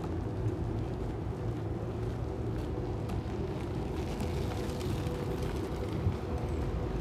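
City street ambience: a steady rumble of road traffic, with a faint steady hum and a few light clicks.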